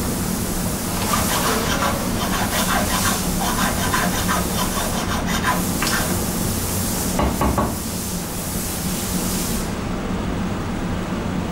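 Quick rasping strokes of hand abrasion on a metal walking-stick cap, in two bursts and easing off after about eight seconds, over a steady hiss.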